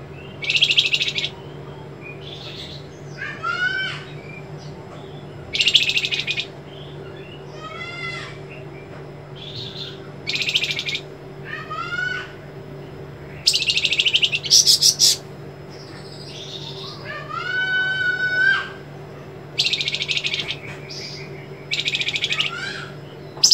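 Caged flamboyan songbird singing in separate phrases every couple of seconds. Short, harsh, buzzy trills alternate with ringing, gliding whistled notes, the sharp trills and 'besetan' that the bird is kept for. A steady low hum runs underneath.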